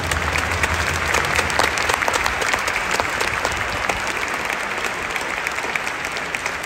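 Large stadium crowd applauding steadily, a dense patter of many hand claps.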